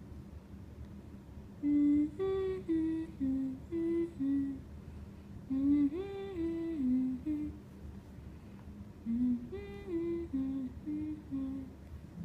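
A simple wordless tune hummed in three short phrases of held notes that step up and down.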